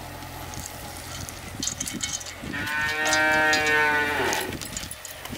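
A cow moos once, a long call of about two seconds in the middle, over a low steady hum and a few light clicks.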